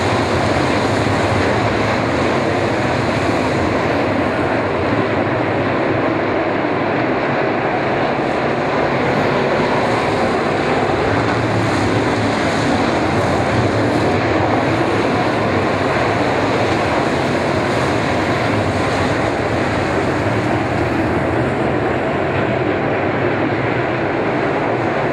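A pack of dirt late model race cars racing on a dirt oval, their V8 engines merging into one loud, steady din.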